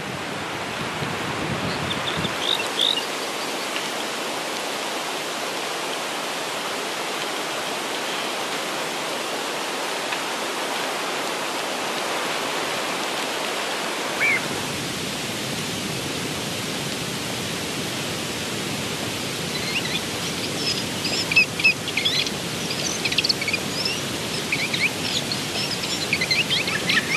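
Outdoor nature ambience: a steady, even rushing noise with small birds chirping. There are a few chirps about two seconds in, one near the middle, and frequent chirping over the last several seconds.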